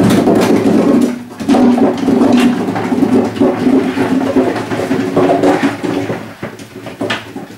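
Whole apples tipped from a plastic bucket into the sheet-metal hopper of a vegetable shredder, tumbling and knocking against the metal in a continuous clatter that thins out near the end.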